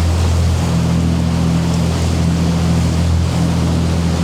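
Motor yacht's Volvo diesel engines running steadily underway, a constant low drone with a wash of water and wind hiss over it.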